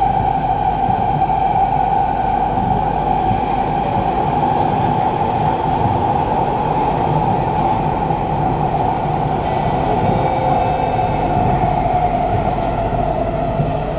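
Kawasaki–CRRC Sifang C151A metro train running at speed through a tunnel, heard from inside the carriage: a loud, steady rumble of wheels on rail with a strong steady tone over it. The tone sinks a little in pitch near the end.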